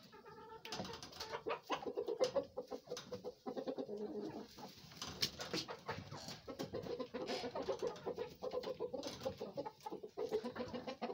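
Several domestic chickens clucking continually in a hen house, a chorus of low calls with many short clicks and taps among them.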